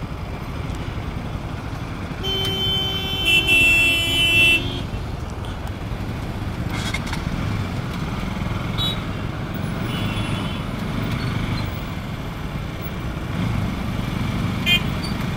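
Stop-and-go city traffic: motorcycle and car engines running at low speed in a jam. About two seconds in, a vehicle horn honks for roughly two seconds.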